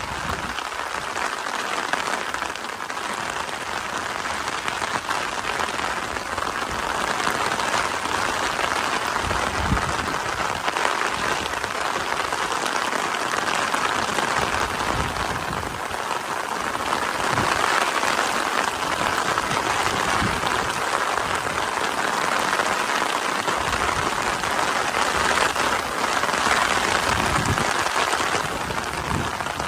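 Steady summer rain falling, an even hiss of drops that does not let up, with a few brief low bumps.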